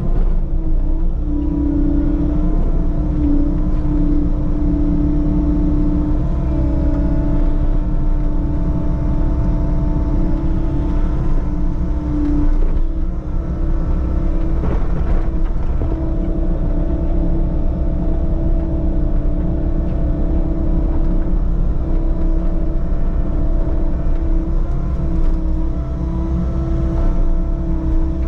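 Diesel engine of a compact construction machine running steadily under work, its pitch dipping briefly a few times.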